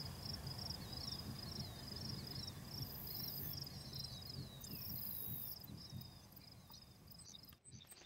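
Faint field ambience: insects trilling steadily at a high pitch, with faint short chirps over it. It cuts off abruptly near the end.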